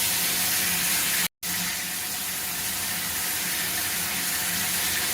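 Water spraying steadily from a cheap three-setting handheld shower head, an even hiss. It is broken once by a brief total silence just over a second in.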